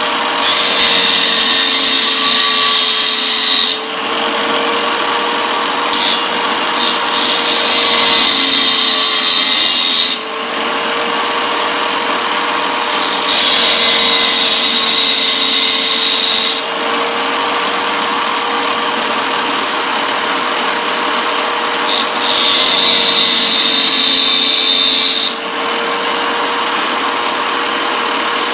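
A small tile cutter's motor runs with a steady whine while the carbide teeth of a table saw blade are ground against its diamond wheel. There are four grinding passes of a few seconds each, louder and higher-pitched than the motor, with the motor alone between them.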